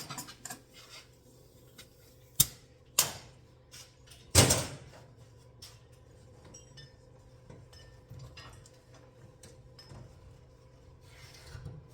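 A few sharp metallic knocks and clanks from hand tools being handled on a car's front suspension, the loudest about four and a half seconds in with a short ring, over a faint steady hum.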